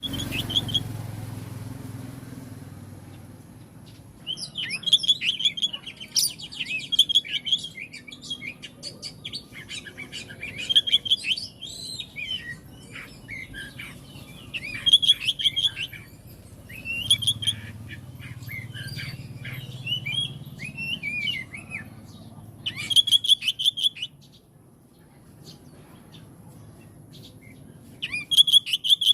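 Oriental magpie-robin (kacer) singing a varied, fast song of chattering repeated notes and gliding whistled phrases in bursts. The song stops for a few seconds and then returns in one short burst near the end.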